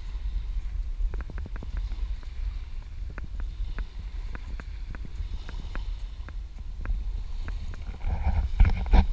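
Wind rumbling on the microphone of a camera carried on horseback, with a scatter of sharp irregular clicks, a few a second, and a few louder knocks near the end.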